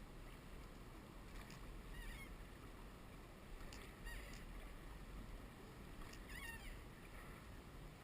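Drift-boat oarlocks squeaking with each oar stroke, a short honk-like creak about every two seconds, over the faint rush of river water.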